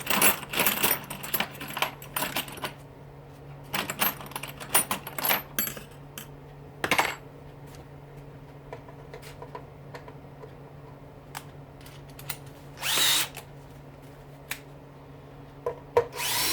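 Power drill-driver with a Torx bit running in short bursts to back out screws from a dishwasher motor, between clicks and clatter of metal parts being handled. A steady low hum runs underneath.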